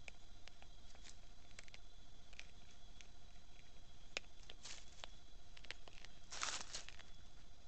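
A paca feeding close by, making scattered sharp clicks and crunches of chewing. A brief rustle in dry leaves comes about six and a half seconds in, the loudest sound here, over a faint steady electronic whine.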